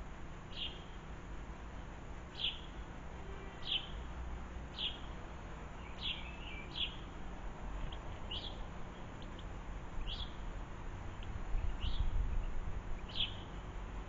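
A small garden bird calling: short single chirps that drop in pitch, about ten of them, one every second or so. A low rumble runs underneath and grows louder near the end.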